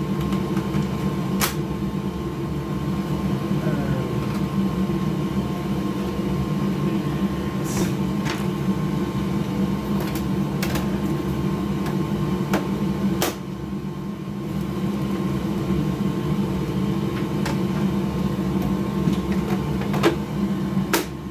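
Steady machine hum with a faint high tone, crossed by scattered light clicks and taps as console parts and screws are handled during reassembly.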